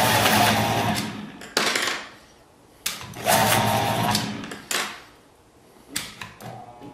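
Panasonic electric pencil sharpener running twice as pencils are fed in: each run starts abruptly, whirs for about a second and a half and dies away, the second beginning about three seconds in. Short knocks come between the runs.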